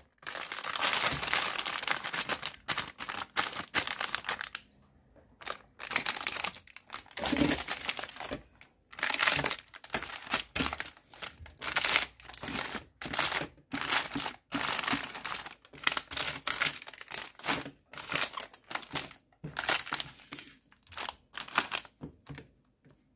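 Plastic ice-pop wrappers crinkling in irregular bursts as the packets are handled and shifted on a tray, with short pauses between handlings.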